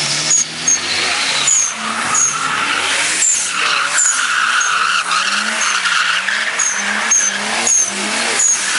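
Nissan Skyline drift car sliding with its tyres squealing and skidding continuously, while the engine revs rise and fall as the driver holds the drift.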